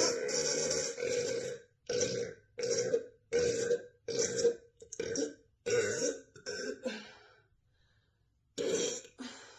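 A young woman burping: a long burp that ends about a second and a half in, then a string of short burps, roughly one every two-thirds of a second, and after a pause of about a second, two more near the end.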